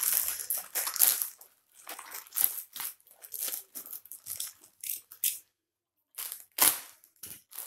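Plastic courier mailer bag crinkling and rustling in irregular bursts as it is handled. After a short pause, a utility knife slits the plastic with sharp crackles about six and a half seconds in.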